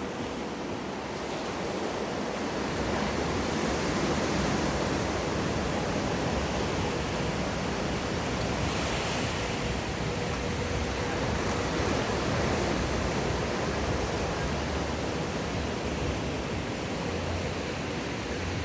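Wave in an artificial surf pool breaking and rushing through, a steady wash of water noise that swells a few seconds in and holds, with a faint steady hum underneath.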